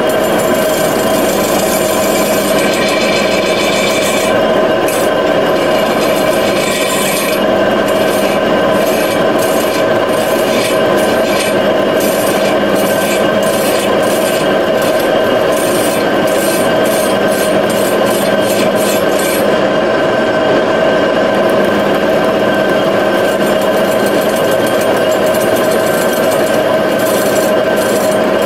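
1942 metal lathe running steadily with a constant pitched hum while a radius cutting tool skims the face of an aluminium wheel rim. A rasping scrape of the cut comes and goes over the hum.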